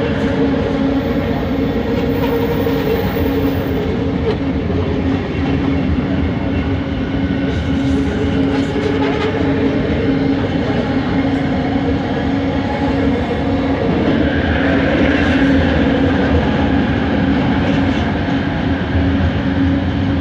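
Bombardier Innovia ART 200 train running, heard from inside the car: the steady hum of its linear induction motors, several held tones over a rumble of wheels and track. A higher tone swells for a couple of seconds about two-thirds of the way through.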